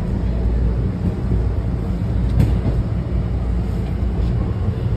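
Washington Metro railcar running slowly as it pulls into a station, a steady low rumble from the wheels and running gear heard from inside the car, with one sharp click about two and a half seconds in.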